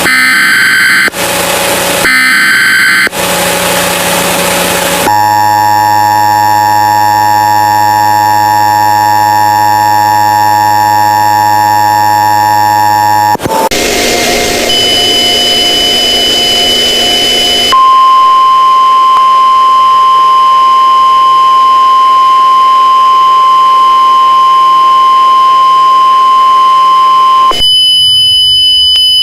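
Emergency Alert System-style alert signal. It opens with a few short, harsh buzzing data bursts. A steady chord of alert tones follows, held for about eight seconds. After a hissy stretch, a single steady alarm tone holds for about ten seconds, and a different tone comes in near the end.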